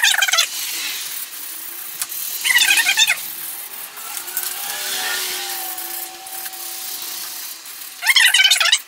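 Handheld wire brush scrubbing a car's brake rotor and caliper, metal bristles scraping on metal in three short bursts of quick strokes: near the start, about two and a half seconds in, and near the end. This is cleaning off dirt before the caliper is sanded and painted. A faint steady engine-like hum runs under it through the middle.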